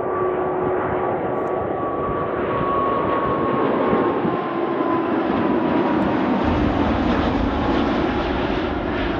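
Jet airliner engines passing close by: a steady rushing noise with a whine that slowly falls in pitch as the plane goes past, and a deeper rumble building in the second half.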